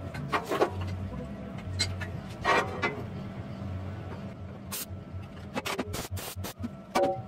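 Steel bumper panels knocking and clanking as they are handled and positioned, then a quick series of short welding-arc bursts as the pieces are tack-welded together, with one more burst near the end.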